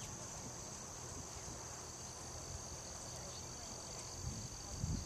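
Steady high-pitched insect chorus, with a low rumble underneath that grows louder near the end.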